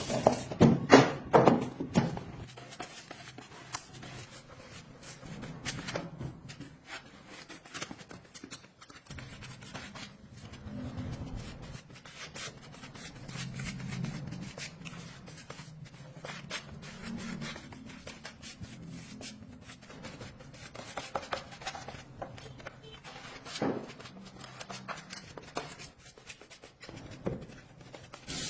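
Handling noise from work on parts: scattered small clicks and taps with some rubbing.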